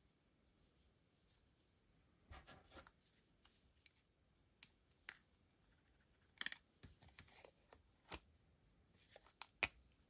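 Apple Watch Series 8 and its silicone sport band handled in cotton gloves while the band is slid into the case's band slot: soft rustling and scraping, with a few sharp clicks, the loudest near the end.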